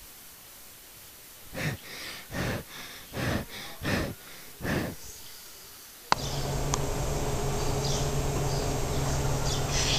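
About six short breathy puffs, a half second or so apart. About six seconds in they give way abruptly to a louder, steady outdoor background hum with a few brief high-pitched sounds.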